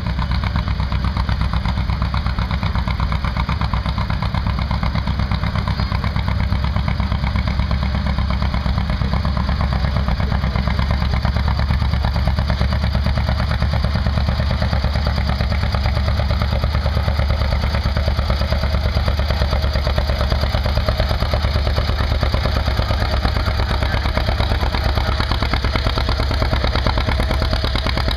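Antique two-cylinder John Deere tractor engine running steadily and loud while pulling a weight-transfer sled.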